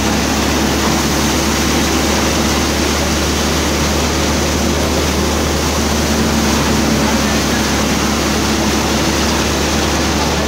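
Grain thresher running under load while threshing, a loud, unchanging mechanical drone with a low hum underneath.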